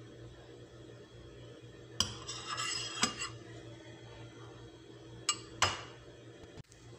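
A metal utensil clinking and scraping against a ceramic baking dish: a cluster of scrapes and clinks about two seconds in, then two sharp clinks near the end, over a steady low hum.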